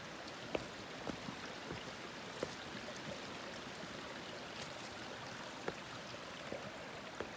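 A small stream running, a steady rush of water, with a few faint irregular clicks over it.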